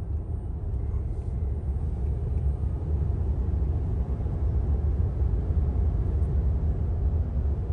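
Steady low road and tyre rumble inside the cabin of a Tesla electric car cruising at highway speed, with no engine note.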